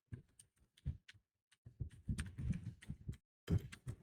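Typing on a computer keyboard: irregular runs of key clicks, with short pauses and a quicker, denser run in the middle.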